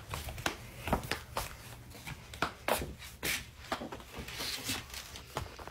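Handling noise from a phone held close to its microphone: scattered light knocks, clicks and rubbing as it is moved about.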